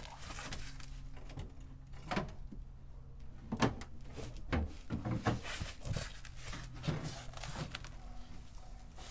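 Front bumper of a Lancia Delta Integrale being worked loose and drawn off the car: a string of irregular knocks and clunks, with a faint low steady hum underneath.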